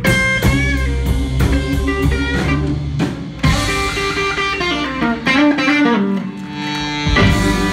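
Live blues band: a Stratocaster electric guitar plays a lead with bent notes over bass and drums, and the full band comes in louder near the end.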